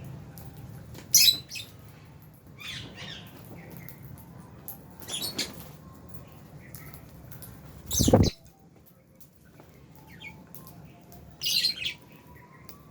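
Lovebirds in an aviary giving scattered sharp, high chirps, a few seconds apart, loudest about a second in and near the end. About eight seconds in comes a louder thump, most likely a bird's wings or landing.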